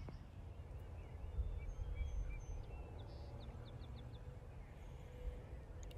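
Faint distant birds calling over a low outdoor rumble: a few scattered chirps, then a quick run of four short high notes about three and a half seconds in.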